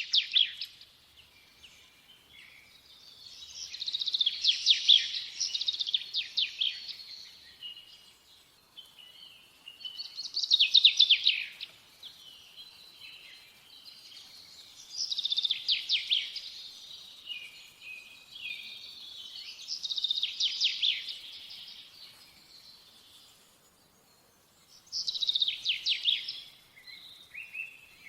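Songbird singing in repeated rapid trilling phrases, about one every five seconds, with short quiet gaps between.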